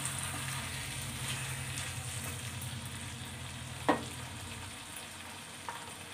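Thick chicken bhuna gravy sizzling in a non-stick kadai over a gas flame while a wooden spatula stirs it, with one knock of the spatula against the pan about four seconds in.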